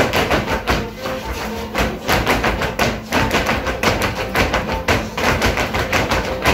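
Live string music for the Negritos dance, with held melody notes, and the dancers' shoes stamping rhythmically on a hard floor in time with it.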